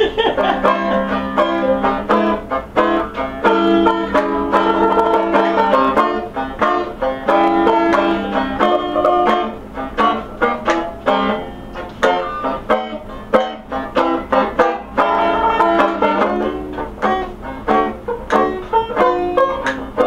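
Tenor banjo played solo, fast picked chords with quick plucked notes.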